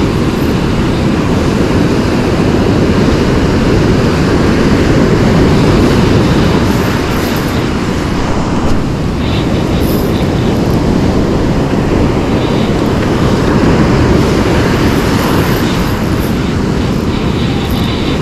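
Wind buffeting the microphone in a loud, steady low rumble, over the wash of breaking surf.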